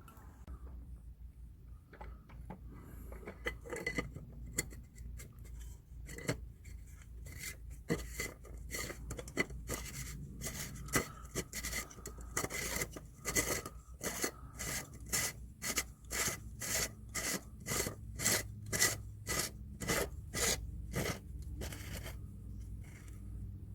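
Repeated rubbing or scraping strokes, sparse at first, then coming close and regular at about two a second through the middle and later part, and stopping shortly before the end.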